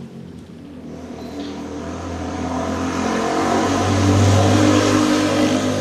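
A motor vehicle's engine running under power, growing steadily louder to a peak about four seconds in and then easing off.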